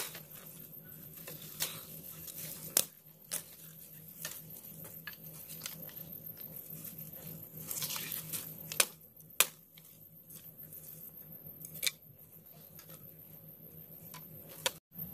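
Dry bamboo stalks and dead grass rustling and cracking as they are pulled and broken by hand, with several sharp snaps scattered through; the loudest come a little before and after nine seconds in.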